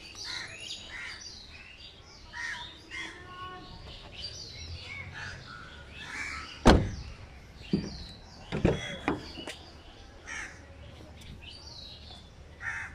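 Birds calling, with harsh caw-like calls and small chirps. A sharp knock sounds about seven seconds in, followed by a few fainter knocks a second or two later.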